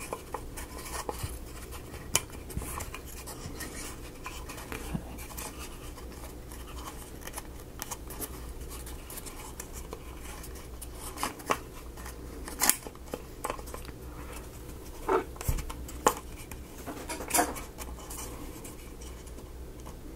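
Small clicks, taps and scrapes of hands working laser-cut plywood model pieces and a rubber O-ring, with a few sharper clicks in the second half.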